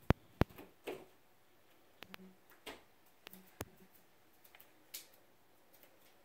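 Two sharp, loud clicks close together right at the start, then scattered lighter clicks and taps over the next few seconds.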